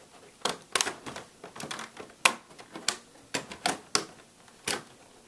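Plastic laptop screen bezel clicking as it is pressed back onto the lid and its clips snap into place: about a dozen sharp, irregular clicks.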